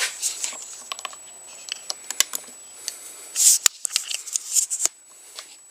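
Hands working small pliers and clutch-lever parts: a run of light clicks and rustles, with a louder brief rustle about three and a half seconds in.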